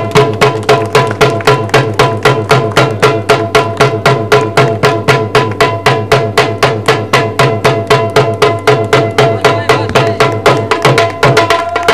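Drum-led folk music with a fast, even beat and steady strong accents, over a long held melody note.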